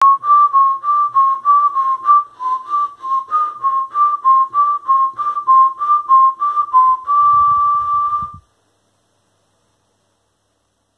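A tune whistled in short notes, about three a second, hopping between a few close pitches, then one long held note that cuts off suddenly.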